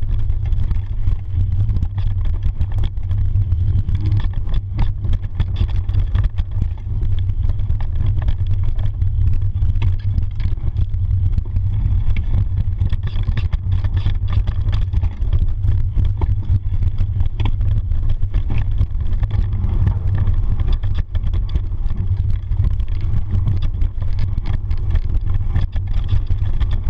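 Wind rushing over an action camera's microphone during a fast mountain-bike descent on a dirt trail: a loud, steady low rumble with many small clatters and knocks from the bike over rough ground.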